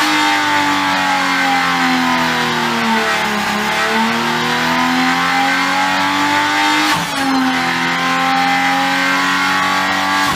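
Stellantis Hurricane 3.0-litre twin-turbo straight-six running on an engine test rig. Its pitch sags and climbs back about a third of the way in, with a brief break in the sound about seven seconds in.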